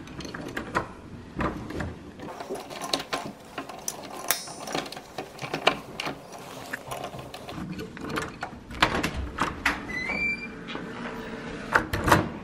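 A key being jiggled and worked in a brass lever-handle door lock that won't open easily: repeated irregular metallic clicks and rattles, with the key ring jingling.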